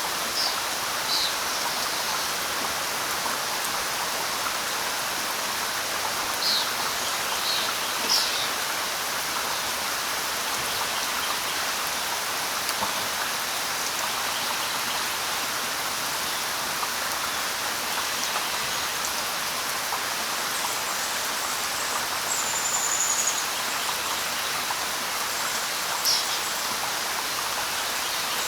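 Steady light rain hissing on leaves, with scattered short high bird chirps and one brief high whistled note about three quarters of the way in.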